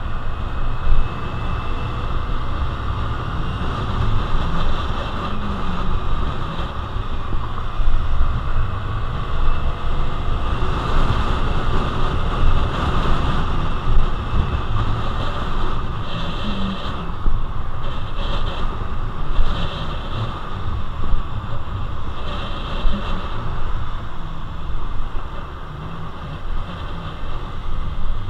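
Wind rushing and buffeting over an action camera's microphone on a Honda Navi ridden at road speed, with a low, uneven rumble of road and vehicle noise underneath.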